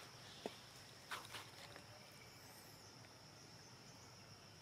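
Faint outdoor ambience with a steady high-pitched insect drone, broken by a sharp click about half a second in and a brief rustle just after a second.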